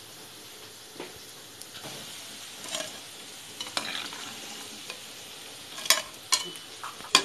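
Lentil-batter dumplings deep-frying in hot oil in a kadai with a steady sizzle. Sharp clinks and scrapes of a metal spoon against the pan come every second or so, grouped more closely near the end as the fried dumplings are lifted out.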